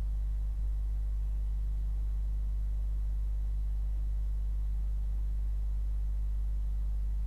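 Steady low hum with nothing else heard; no sound of the crash on screen comes through.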